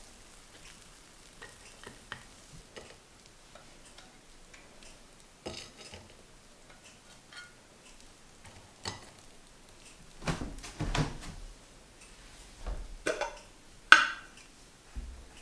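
Dishes and cutlery being handled: light scattered clicks and taps, a couple of clattering knocks about two-thirds of the way in, and a sharp ringing clink near the end.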